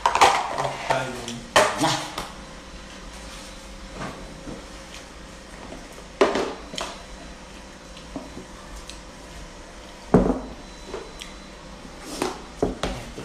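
Handling of a plastic food container and a bag on a table: several sharp knocks and clatters spread apart, with rustling in between.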